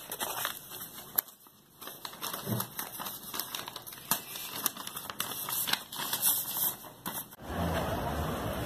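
Irregular clicks and crackling handling noise. About seven seconds in, it gives way abruptly to a vehicle engine running steadily.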